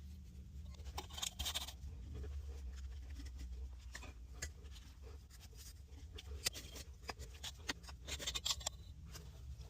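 Scattered scraping and clicking from hand work on the buried PVC water main and the soil around it, with two short, denser scratchy bursts, one about a second in and one near the end, over a low steady hum.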